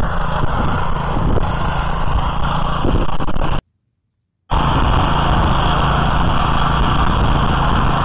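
Small single-cylinder petrol engine of an Oka walk-behind tractor (motoblock) running steadily under load while it cultivates loose soil. The sound cuts out completely for just under a second partway through, then carries on.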